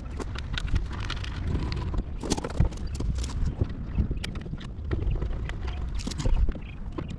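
Irregular knocks, clunks and clicks of a tabletop being set onto a radial arm saw and fastened down by hand, over a low steady rumble.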